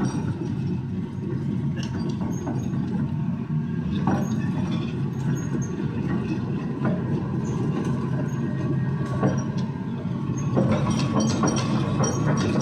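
Hitachi excavator's diesel engine running steadily, with scattered metallic clanks and squeaks; it grows a little louder about ten and a half seconds in.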